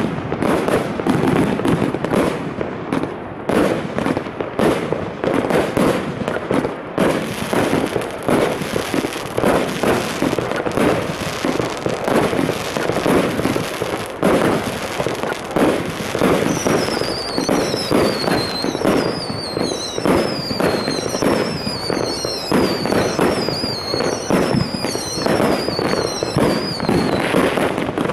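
A Red Wire Fireworks 'Double Gold' 25 mm cake firing its 36 shots of brocade mines and crowns in a rapid, unbroken string of cracks and thumps. A high falling whistle repeats about once a second through the second half.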